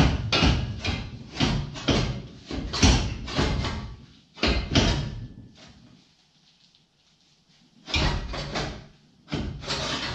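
Steel trailer hitch clanking and scraping against the truck's frame rails as it is worked on and off, in quick runs of knocks with a quiet gap of about two seconds past the middle. It slides on and off fairly well, a sign that the frame has not sprung after the cross member was cut out.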